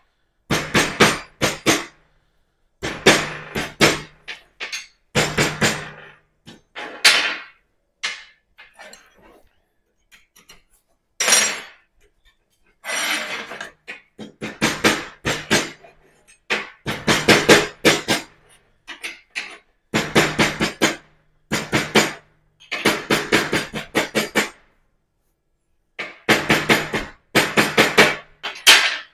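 Hammer striking the end of a steel exhaust tube held on a steel bench: metal-on-metal blows in quick bursts of several strikes a second, with short pauses between the bursts.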